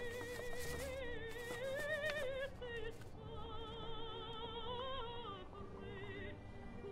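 Operatic singing: a high voice holds long notes with a wide vibrato, moving from note to note every second or so.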